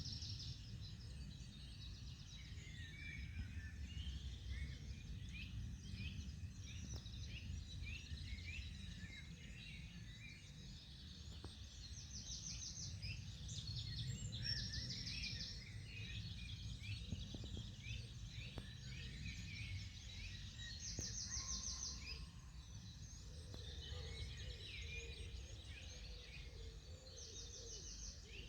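Morning bird chorus: several small birds chirping and singing, with a short, fast trill recurring several times, over a steady low rumble of background noise.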